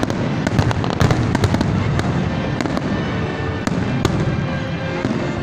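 Fireworks display: aerial shells bursting in rapid, overlapping bangs with continuous crackling.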